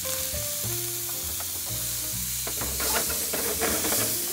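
Squid pieces sizzling as they stir-fry in hot oil in a wok, stirred with chopsticks, with light clicks. The sizzle grows louder about three seconds in, as flames flare up from the pans.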